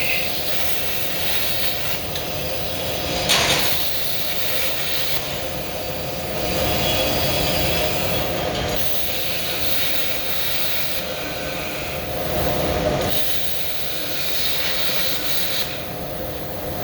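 Plasma cutter running: a harsh hiss of the arc and air that swells and eases in stretches of a few seconds, over a steady hum.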